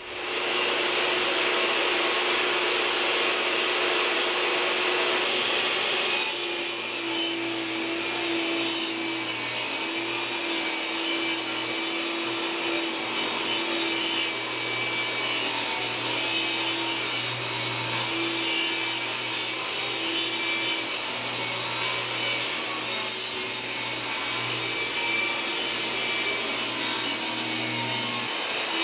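Table saw running and ripping plywood sheets lengthwise, a continuous loud cutting noise over the motor's steady hum. The noise grows harsher about six seconds in.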